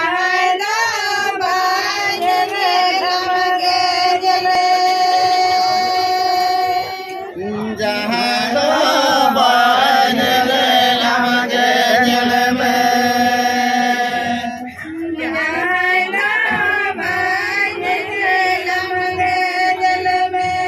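A group of Santal villagers singing a traditional chant in unison, in three long phrases of held notes with short breaks between them, the middle phrase pitched lower.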